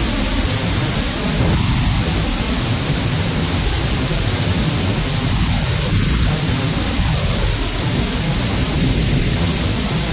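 Steady, loud noise inside the cargo hold of a Boeing C-17 Globemaster III in flight: its four turbofan engines and the airstream past the open paratroop door, with a thin steady high whine over it.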